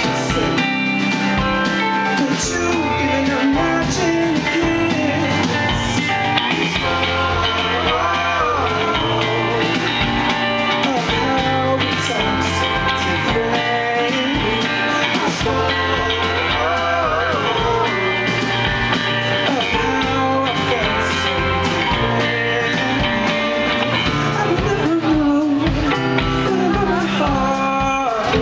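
Indie rock band playing live, with a semi-hollow electric guitar being strummed over a steady beat.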